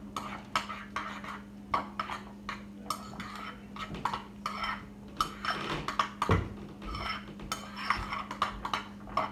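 Dishes and cutlery being handled: a run of light clinks and knocks, with a louder knock about six seconds in, over a steady low hum.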